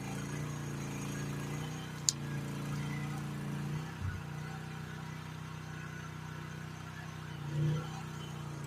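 GroundHog KH14G mini excavator's engine running steadily. There is one sharp click about two seconds in, and a brief louder swell near the end.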